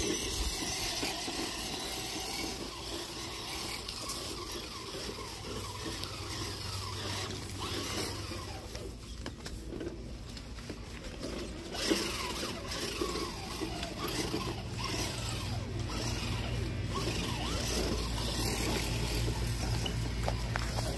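Rubbing and handling noise on a phone's microphone as it is carried about, with a steady low rumble and a single sharp knock about twelve seconds in.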